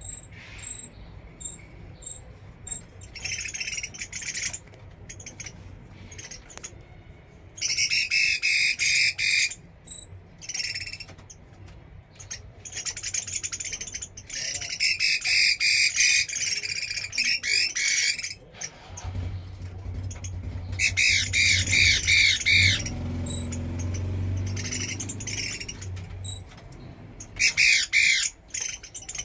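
Hwamei (bạch mi) singing in about five loud bursts of rapid, varied phrases, with short pauses between them.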